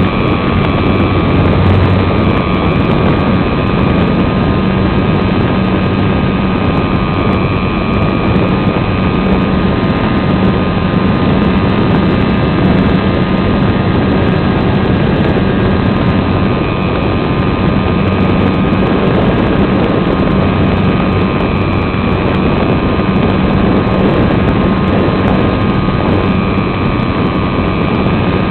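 Electric motor and propeller of a radio-controlled SIG Riser glider running steadily, heard from a camera on board: a constant whine over a steady rush of air past the microphone.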